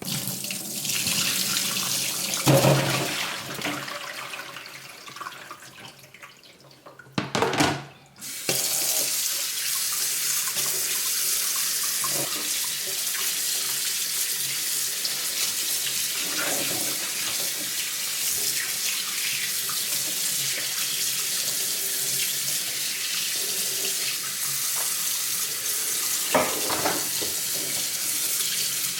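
Kitchen tap running into a sink as turkey necks are rinsed under it. The flow tapers away over the first several seconds, comes back in a short gush, then runs steadily from about 8 seconds in, with a couple of brief knocks.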